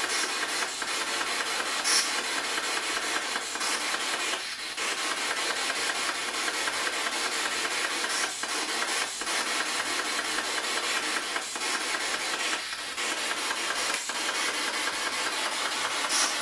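Spirit box sweeping radio stations, giving out a steady wash of static hiss through a small handheld speaker, with a few brief dips in the noise.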